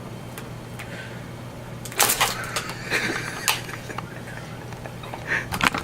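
A doorknob being turned and a door opened, with a clatter of latch and door clicks about two seconds in and a few single clicks later.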